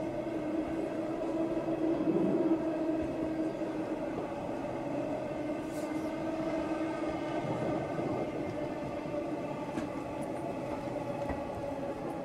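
Running sound recorded aboard motor car MoHa E231-901 of the E231-900 series electric train, fitted with a Hitachi IGBT-VVVF inverter, while running between stations: a steady whine of several held tones over the rumble of the wheels on the rails, swelling briefly about two seconds in.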